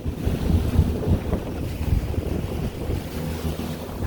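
A pilothouse fishing boat's engine running steadily as a low hum, with wind gusting and buffeting the microphone.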